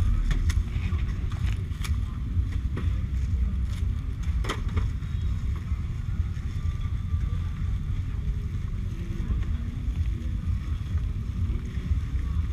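Steady low rumble of motorbike street traffic and engines, with a few light clicks and knocks in the first few seconds.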